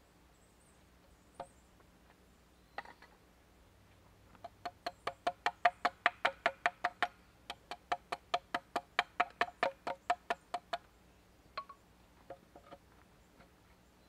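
Rapid knocking on wood: two quick runs of ringing knocks, about five a second with a short break between them, as a sawhorse joint is tapped together. A few single knocks come before and after the runs.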